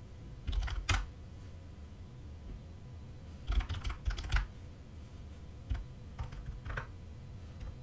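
Computer keyboard being typed on in short bursts of a few keystrokes, with pauses between them.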